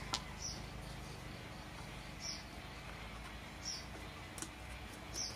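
Quiet background with a low steady hum and a faint, short high chirp that repeats four times, about every one and a half seconds.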